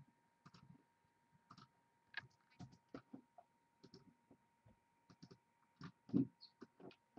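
Faint computer mouse and keyboard clicks, irregular and spaced out, as a list is selected, copied and pasted into a spreadsheet, with a louder dull knock about six seconds in. A faint steady high whine underneath.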